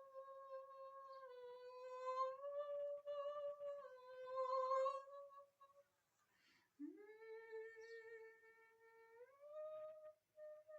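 A woman softly humming a slow, wordless siren's song in long held notes. About two-thirds of the way through, after a short break, a new note slides up from low, and near the end the melody steps higher.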